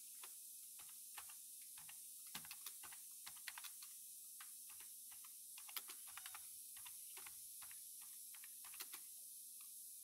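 Computer keyboard typing: faint, uneven key clicks in short runs with pauses between them.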